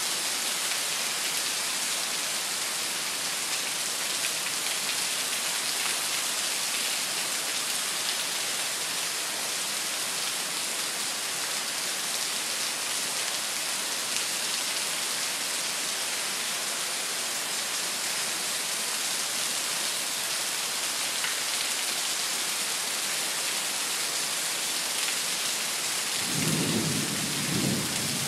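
Heavy rain falling steadily in a thunderstorm, with a low rumble of thunder rolling in near the end.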